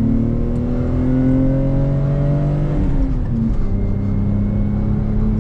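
Lexus IS300's 2JZ-GE inline-six accelerating under load, its pitch climbing. About three seconds in the revs drop with an upshift, then the engine pulls again.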